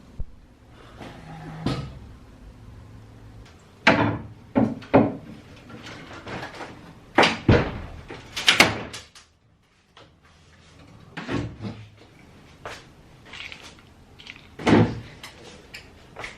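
Irregular knocks and bangs of furniture and cupboard doors being moved and handled, about a dozen sharp hits of varying loudness.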